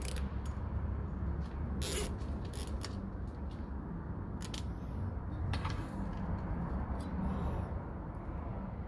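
Hands working a bicycle gear outer cable into the frame's cable guides by the rear derailleur: a few light clicks and scrapes of cable and plastic, over a steady low background rumble.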